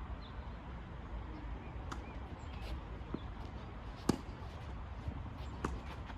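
Tennis rally: a tennis ball knocking off racket strings and bouncing on the court, several sharp separate knocks with the loudest about four seconds in, over a steady low rumble.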